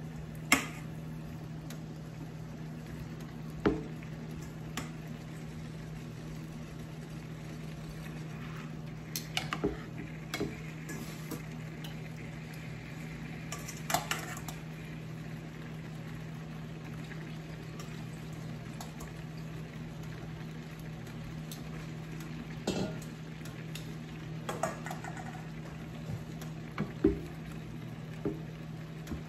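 Sauce simmering in a frying pan while metal tongs clink against a stainless steel bowl and the pan as pieces of salmon head are laid in, with a wooden spoon stirring near the end. Sharp clinks and knocks come every few seconds over a steady low hum.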